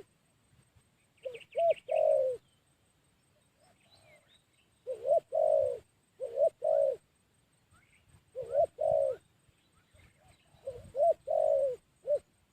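Young dove cooing in four phrases, each a couple of short clipped notes followed by one or two longer rolling coos. A smaller bird chirps briefly about a second in.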